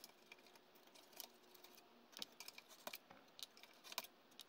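Faint scattered clicks and scrapes of a small screwdriver prying DIP cache SRAM chips out of their sockets on a 386 mainboard, thickest in the second half.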